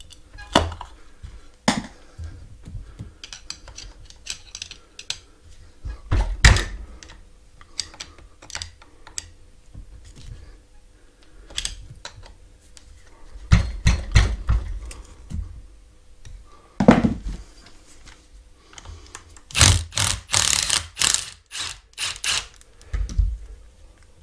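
Screwdriver prying and tapping at a mobility scooter's rear wheel hub, bending the axle nut's retaining lugs: irregular metal clicks, scrapes and knocks, with a burst of sharp metallic clinks near the end.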